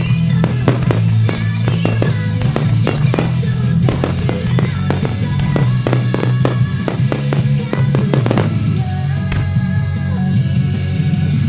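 A rapid run of fireworks bursting and cracking, several bangs a second, over a rock song played loudly through outdoor loudspeakers. The bangs thin out about eight seconds in while the music carries on.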